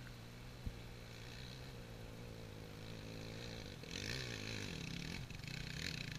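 Off-road motorcycle engines: one idling steadily close by, and another climbing the dirt trail toward it that grows louder from about four seconds in, its engine revving up and down. A single brief knock under a second in.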